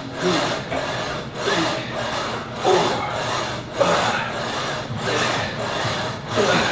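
Plate-loaded leg press worked through fast repetitions: a continuous rasping sound that swells and dips about once a second with each stroke of the sled.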